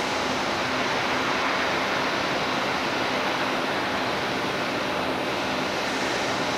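Steady rushing noise of water churning at the base of the Panama Canal's Miraflores lock gates as they swing open, with a faint low hum underneath.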